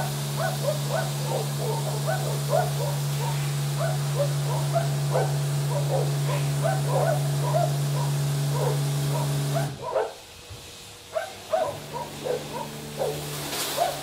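Stargate S6 rollover car wash running with a steady low hum, overlaid by many short squeaky yelping sounds, a few a second. The hum cuts out suddenly about ten seconds in and comes back a couple of seconds later, with a brief hiss near the end.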